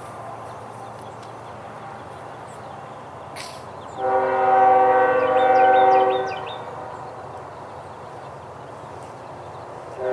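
Distant locomotive air horn, a Nathan K5HL chime, sounding one steady chord of several notes for about two and a half seconds, starting about four seconds in, as the train approaches the crossing.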